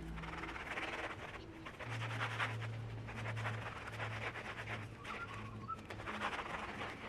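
Kitchen sponge scrubbing wet ceramic tile and a concrete ledge in repeated rubbing strokes, lifting mould and stains. A low, pulsing tone runs in the background through the middle of the scrubbing.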